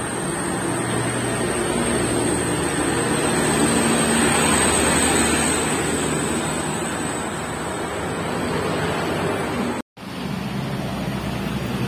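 Light diesel trucks and a minibus passing on the road, with engine drone and tyre noise that swell as a truck goes by close about four seconds in. Near the end the sound cuts out for a moment, then another vehicle is heard passing.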